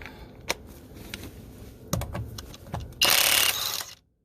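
Cordless high-torque impact wrench (Kobalt XTR) firing in one burst of about a second near the end, after a few sharp metal clicks and clanks.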